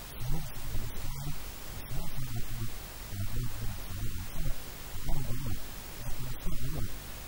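A man talking steadily, over a constant background hiss.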